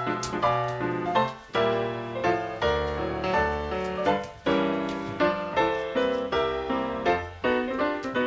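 Background piano music: a busy run of struck notes and chords, each starting sharply and fading.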